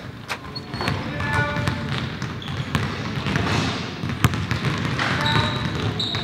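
Several basketballs bouncing on a hardwood gym floor as players dribble, with a few short, high sneaker squeaks about five and six seconds in.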